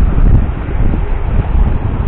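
Wind buffeting the microphone: a loud, uneven rumble that swells and dips with the gusts.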